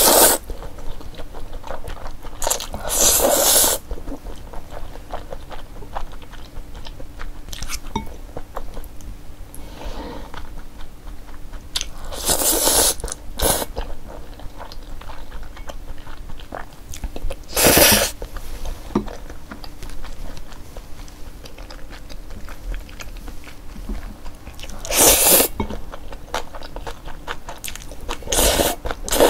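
A person slurping spicy jjajang instant noodles off chopsticks, several loud slurps a few seconds apart, with wet chewing in between.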